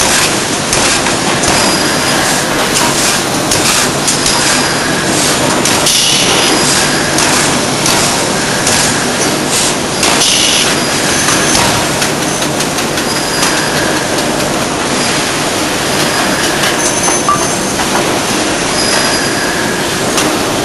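A D51 ring rolling machine runs as it rolls a red-hot metal ring, giving a loud, steady mechanical noise. Brief high squeals come and go over it.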